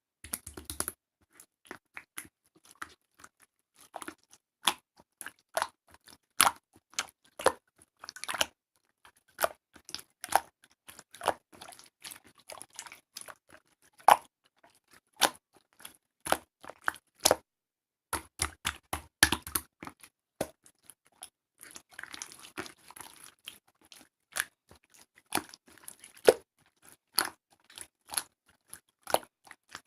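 Slime being squished and stretched by hand, giving a run of irregular sticky clicks and pops, some of them loud.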